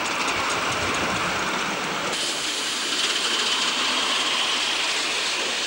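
Ride-on miniature live-steam train's loaded passenger cars rolling past close by on the elevated track, a steady rushing wheel-on-rail noise that grows brighter about two seconds in.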